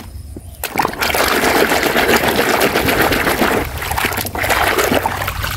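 Muddy soapy water sloshing and splashing in a plastic basin as a hand scrubs a plastic toy vehicle in it. It starts about a second in and keeps up as a busy, irregular splashing.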